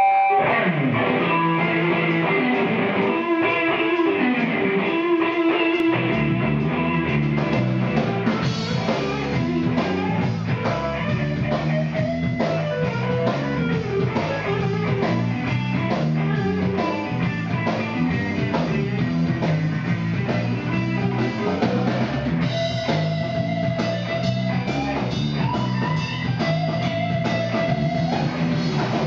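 Electric guitar playing a blues solo with bent, sustained notes. It plays alone for about the first six seconds, then drums and bass come in and the full band plays on beneath the solo.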